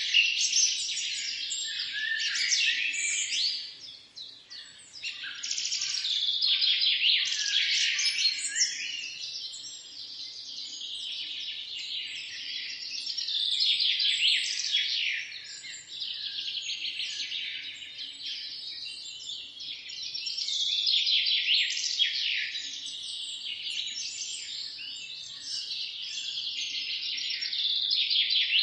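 Many small birds chirping at once, a dense chatter of quick overlapping high-pitched chirps that swells and fades, with a brief lull about four seconds in.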